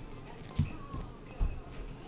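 Two soft, low thumps a little under a second apart, with faint high tones in the background.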